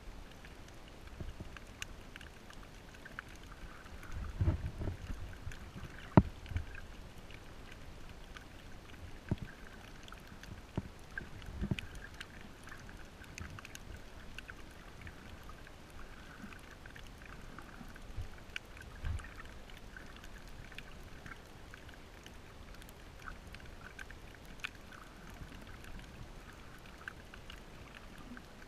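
Underwater sound picked up by a snorkeler's camera on a shallow reef: a faint, steady crackle of scattered tiny clicks, broken by a few dull low thumps and knocks from the swimmer's movement, the sharpest about six seconds in.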